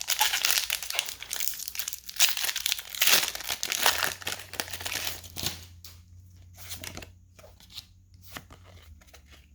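Foil Pokémon booster pack wrapper being crinkled and torn open, loudest for the first four seconds or so, then quieter scattered rustles and clicks.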